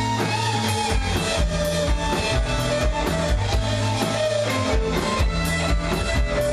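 Live rock band playing amplified electric guitars over a drum kit, with a lead guitar carrying a melody of held, bending notes above a steady beat.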